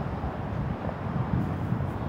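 Gale-force wind buffeting the microphone: an uneven, gusty low rumble.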